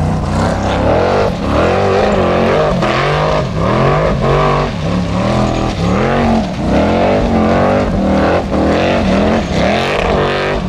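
Formula Offroad buggy engine revving hard in quick repeated surges, its pitch climbing and dropping a little under once a second.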